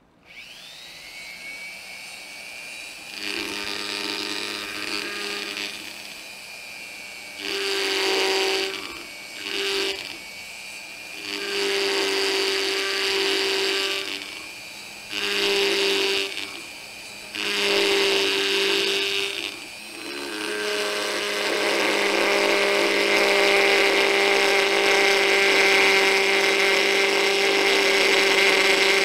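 Flexible-shaft rotary carving tool spinning up, then running steadily as its carving bit grinds grooves into the wooden reamer head. The grinding comes in several short passes of a few seconds each, then one long unbroken cut over the last third; the bit only cuts when pressed against the wood.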